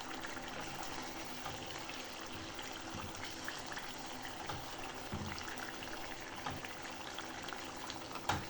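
Egg, onion and pepper mixture frying in oil in an uncovered pot: a steady sizzle with small crackles. A short knock near the end.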